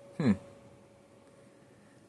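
A brief vocal sound falling steeply in pitch about a quarter second in, then faint hiss with a thin steady tone that fades away.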